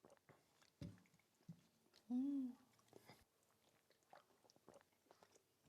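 Quiet eating sounds at a meal: faint chewing and scattered small clicks. About two seconds in comes a short hummed 'mm' that rises and falls in pitch.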